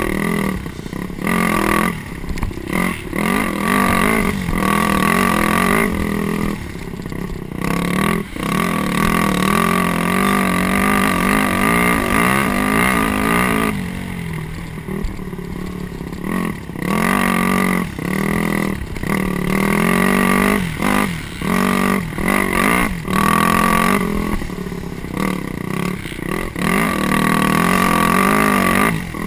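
Dirt bike engine running under load, its pitch and loudness rising and falling as the throttle opens and closes, with a quieter, lower-revving stretch about halfway through.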